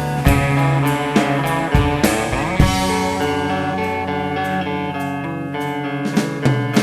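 Instrumental rock music: guitars playing over bass and drums, with no singing.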